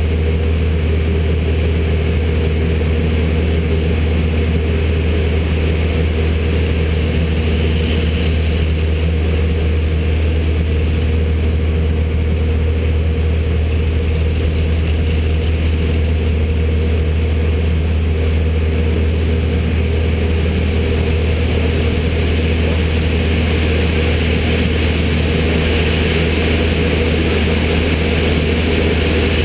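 Propeller engine of a single-engine aerobatic plane running steadily, a constant low drone heard inside the closed cockpit.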